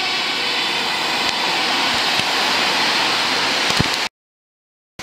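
Loud, steady rushing noise of road traffic passing close by, with no clear tones in it. It cuts off abruptly to silence about four seconds in.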